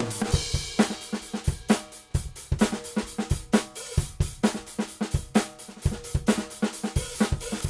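Drum kit playing a steady groove of kick drum, snare and hi-hat, with a cymbal crash ringing just after the start.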